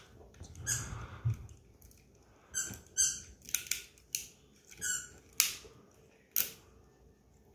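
Plastic joints of a 1987 G1 Transformers Doublecross toy clicking, ratcheting and scraping as its limbs are folded and turned by hand. The clicks come in short runs with gaps between.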